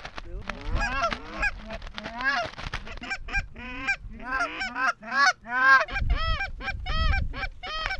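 Goose honking: a rapid run of honks, each rising and falling in pitch, settling into about three a second near the end.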